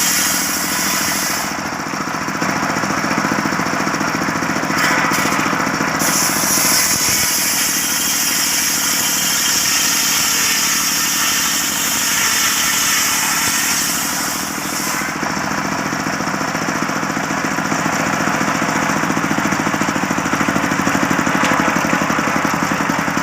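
Circular sawmill running steadily, sawing a long medang log, with a high-pitched hiss from the blade in the wood that comes and goes and is strongest through the middle.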